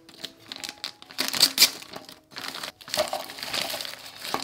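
Plastic food pouch crinkling as it is handled and emptied, with frozen fish cakes tumbling into a wooden bowl; a couple of sharp knocks in the last second and a half.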